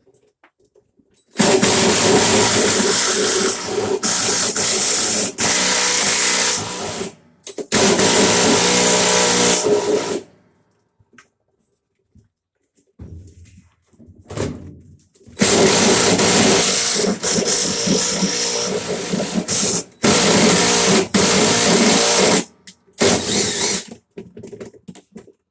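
A power tool run in four bursts of a few seconds each, loud and hissy with a steady hum underneath, on a washer part that is stuck fast.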